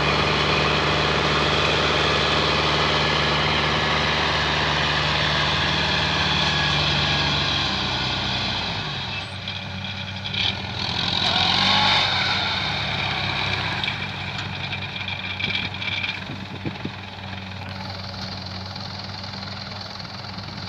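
Diesel engine of a rice combine harvester running steadily with the hiss of its threshing machinery. About nine seconds in, the low hum drops away and the sound gets quieter.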